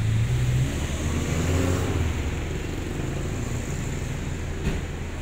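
A vehicle engine running, its pitch rising briefly during the first two seconds as if revved, then settling to a steady hum. A single sharp click comes near the end.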